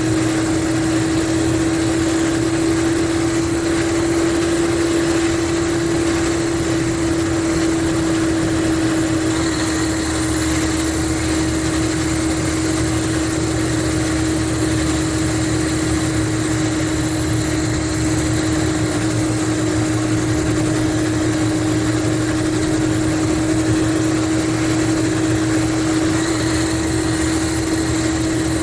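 Mercedes-Benz O500RSD coach engine running steadily: an even drone with a constant mid-pitched tone, no revving.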